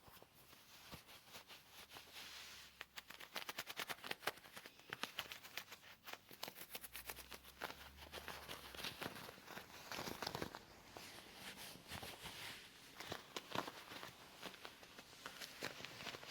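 Leather gloves rubbed and handled close to the microphone, making a dense, crackly rustle of small clicks that gets busier about three seconds in.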